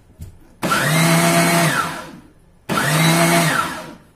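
Electric mixer-grinder blending ghevar batter of flour and cold water in two short pulses of a little over a second each. In each pulse the motor whines up to speed and winds back down.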